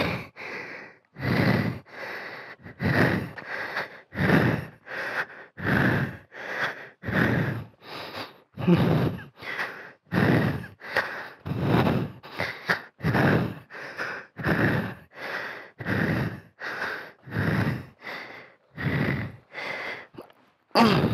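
A man panting hard close to the microphone, quick, even breaths in and out, about one full breath a second: out of breath after heavy exertion.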